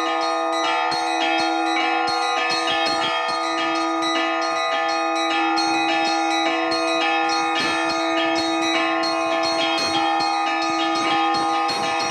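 Orthodox church bells rung by hand in an improvised peal. Small bells are struck in quick rhythm, several strokes a second, over the steady ringing of larger bells.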